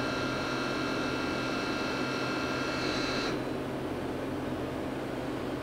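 Okuma Genos L300-MYW-e CNC lathe's live tool spinning at 2,500 rpm, a steady high whine that cuts off suddenly about three seconds in. The lathe's lower steady hum carries on underneath.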